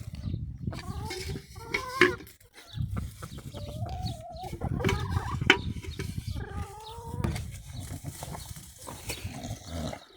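Chickens clucking and calling, in drawn-out pitched calls, with a few sharp knocks about two and five seconds in.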